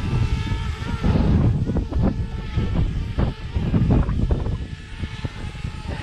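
Wind buffeting the microphone in uneven gusts, with the thin whine of a quadcopter drone's propellers fading out in the first second.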